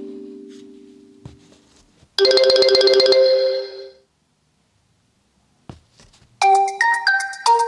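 Oppo Find X3 Pro ringtones: the last held note of one tone fades out, then a short, rapidly pulsing chime sounds for about a second and dies away. After a pause of about two seconds a new ringtone starts, a quick melody of short stepping notes.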